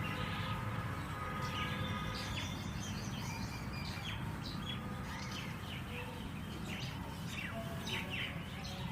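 Small birds chirping: many short, sharp calls and quick falling notes, over a steady low background hum.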